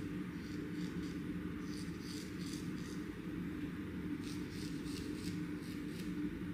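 Straight razor scraping across the skin in short, light, quick strokes, shaving the eyebrow and forehead area, in three runs of strokes over a steady low hum.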